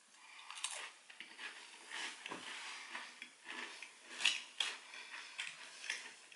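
Chewing a crumbly MRE cracker spread with cheese: irregular, crisp crunches, with the sharpest crunches about two-thirds of a second in and around four seconds in.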